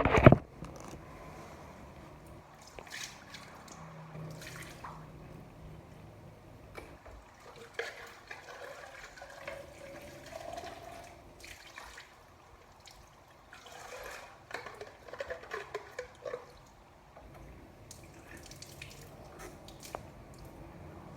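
Water running and splashing at a sink while things are being washed by hand, with scattered short clinks and knocks.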